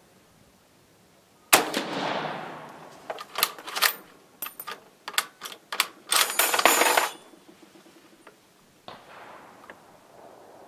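A 6.5mm Carcano M38 short rifle fires one shot, which rings out and dies away over about two seconds. Then comes a string of sharp metallic clicks and clacks as its bolt is worked to eject the case and chamber the next round. Near the end there is a much fainter bang with a short echo.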